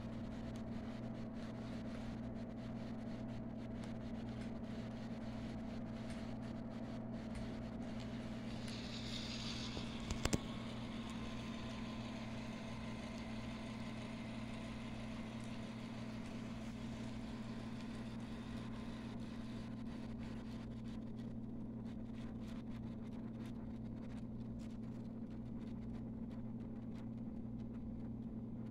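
HO scale model passenger trains running on the layout track: a steady, even motor hum with the rolling of wheels on rails. About ten seconds in there is a short hiss, then a single sharp click.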